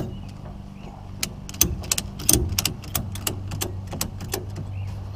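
Cargo ratchet strap being cranked tight: a run of sharp metallic clicks, several a second, for about three seconds, over a steady low hum.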